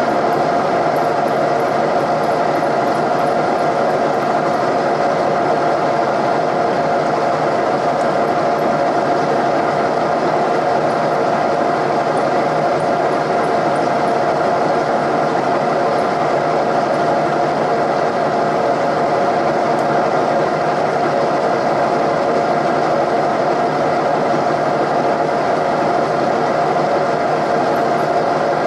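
Milling machine running steadily as its spindle drives a drill bit into a broken-off exhaust manifold bolt in a Ford 460 cast-iron cylinder head, a constant machine drone with a steady whine.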